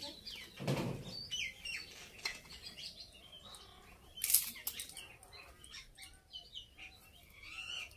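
Small birds chirping and twittering. Over them come a few short, sharp scrapes of a boti blade cutting plant stalk, the loudest about four seconds in, and a brief low sound about a second in.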